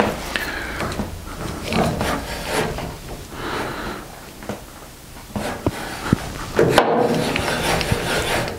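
Newly fitted handwheel on an Axminster AT315BS table saw being tightened and cranked by hand. Irregular rubbing and scraping comes from the wheel and its gear mechanism, with scattered sharp metal clicks, and it gets busier in the last couple of seconds. The wheel turns stiffly because its retaining screw is done up quite tight.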